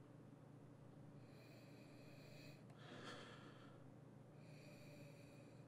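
Three faint, drawn-out sniffs as a man noses whisky in a stemmed tasting glass.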